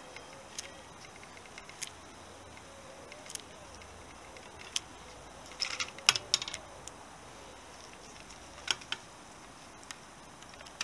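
Light clicks and rattles of wires and plastic connectors being handled in a motorcycle headlamp bowl, with a quick run of sharper clicks about six seconds in and two more near nine seconds.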